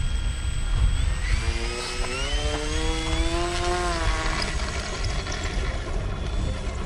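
Electric brushless motor and propeller of a scratch-built RC Piper Archer running up under throttle for its takeoff roll: a buzzing whine that climbs steadily in pitch, then fades as the plane rolls away. Low rumble of wind on the microphone throughout.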